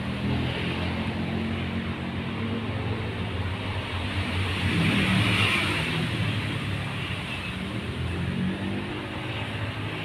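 Steady engine hum of a motor vehicle, swelling to its loudest about halfway through and easing off again.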